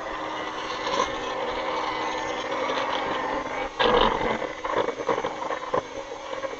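Electric hand mixer running, its beaters creaming butter and sugar in a plastic bowl. The motor starts at the outset with a steady hum, and about four seconds in the sound turns louder and more uneven as the beaters work through the mixture.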